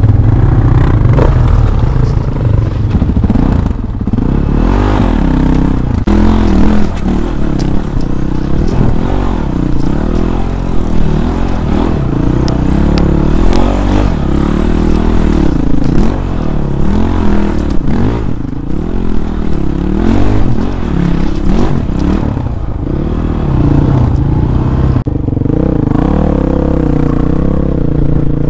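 Dirt bike engine heard up close from the rider's own bike, revving up and down again and again as it climbs over rock, with clattering and scraping from the rocky ground. The engine settles to a steadier note near the end.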